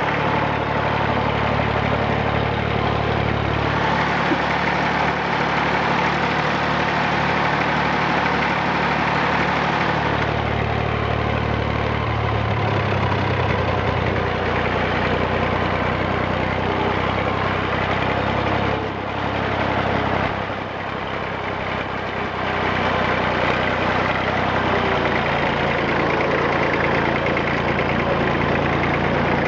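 1959 Fordson Dexta's three-cylinder Perkins diesel engine running steadily, its speed shifting several times, with a brief dip in loudness about two-thirds of the way through.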